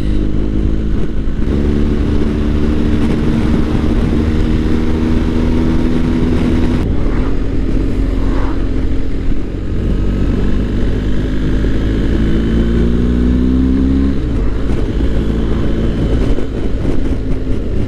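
BMW R1250 GS boxer-twin engine running under way with wind rush. The engine note holds steady, later climbs gradually as the bike accelerates, then drops abruptly near the end.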